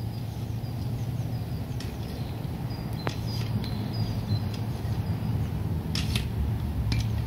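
Manual ripper-style digging fork being worked in garden soil: a few sharp clicks and clanks from the tool's metal frame and tines, over a steady low rumble.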